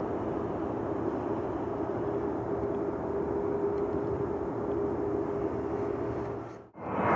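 Jet airliner engines running with a steady rumble and a faint steady hum. Near the end the sound briefly drops out, and then louder jet engine noise begins.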